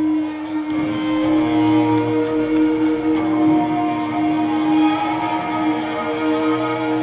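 Live rock band with electric guitars and drums playing: a loud held guitar note rings out, more sustained guitar notes join about a second in, and cymbals tick out a steady beat.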